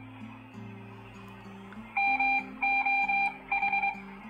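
ARDF practice fox beacon heard on a handheld radio: a steady, high beep tone keyed on and off, three long beeps beginning about two seconds in. Quiet background music with sustained low notes plays throughout.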